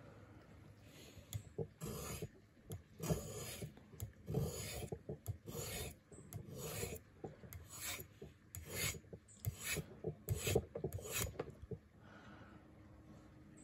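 Leatherman PST knife blade being drawn across a sharpening stone: a steady run of scraping strokes, about one to two a second, that stops about two seconds before the end.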